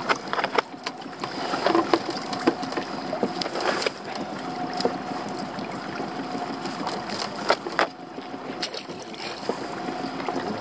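A small fishing boat's engine idling with a steady hum, with scattered knocks and rattles as a netted crab pot is handled against the boat's side.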